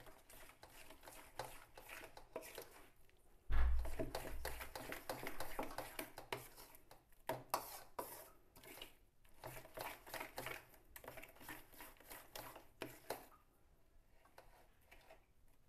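A hand mixing thick, still-lumpy flour batter in a metal bowl: irregular wet squelches and clicks, with a dull thump about three and a half seconds in. The mixing goes quieter near the end.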